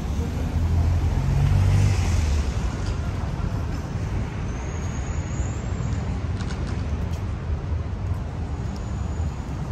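City street traffic: a steady rumble of passing cars, with one vehicle going by close in the first two seconds or so. A brief high squeal comes about five seconds in.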